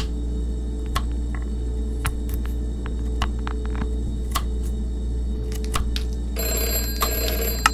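Kitchen knife slicing carrots on a glass cutting board: sharp, irregular clicks as the blade strikes the glass, over a steady low hum. Near the end a second of hiss with steady high tones comes in.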